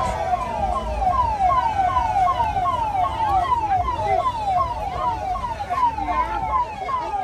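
Police vehicle siren sounding a fast repeating falling wail, about three downward sweeps a second, over low street and crowd rumble.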